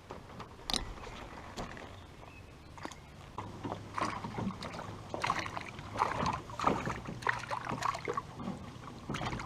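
Water splashing and sloshing with knocks and clicks against a small rowboat, sparse at first and much busier from about three and a half seconds in.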